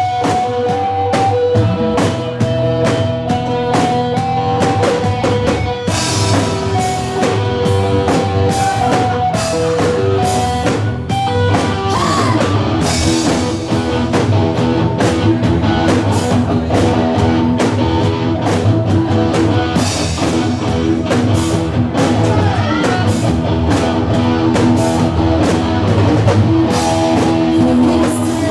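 Live rock band playing: a woman singing over electric guitars, bass guitar and a drum kit keeping a steady beat.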